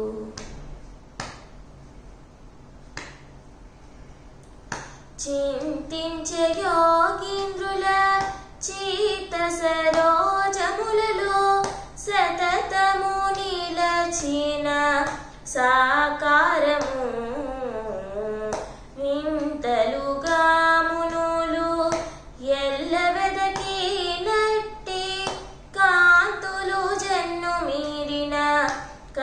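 A woman singing a Telugu song about Rama alone, in long gliding phrases that bend up and down in pitch. Sharp hand slaps keep the beat. For the first five seconds only a few slaps are heard, then the singing comes back in.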